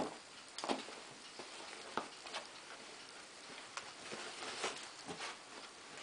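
A whippet puppy and a saluki wrestling on a padded dog bed: scattered scuffles and soft knocks, the sharpest one right at the start, with a few more spread through.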